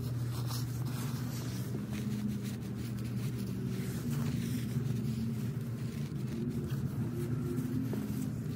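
A steady low motor hum, like a running vehicle engine, with faint scattered clicks over it.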